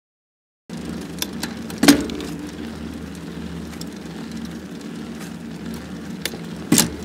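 Steady vehicle rumble with a low hum and a few sharp clicks, starting after a brief silence.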